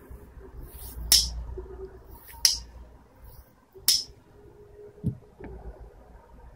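MGN15 steel linear guide rails and carriage blocks being handled: three sharp metallic clacks about a second and a half apart, then a softer dull knock near the end.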